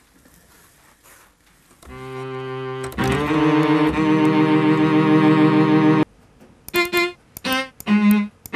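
Synthesizer tones played on a MIDI keyboard. A held note comes in about two seconds in and is joined a second later by a louder, fuller chord that cuts off suddenly. A few short notes follow near the end.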